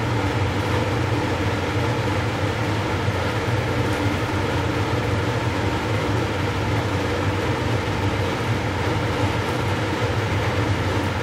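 Cleanroom ventilation fans running, a steady low hum under an even airy hiss.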